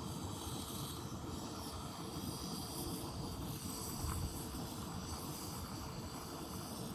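Single-burner propane camp stove burning with a steady low hiss under a cast iron skillet, with one soft click about four seconds in.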